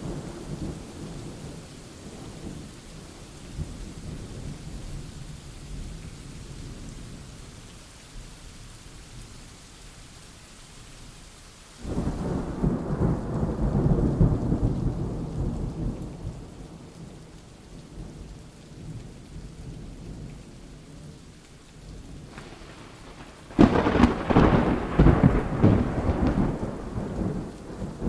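Rain falling steadily through a thunderstorm. A low thunder rumble starts suddenly about twelve seconds in and fades over several seconds. Near the end a louder thunderclap breaks in sharply and keeps rumbling.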